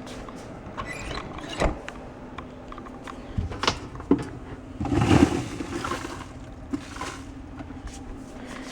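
Used coffee grounds knocked out of a coffee machine's grounds container into a trash can: a few sharp knocks and a short rattling spill about five seconds in.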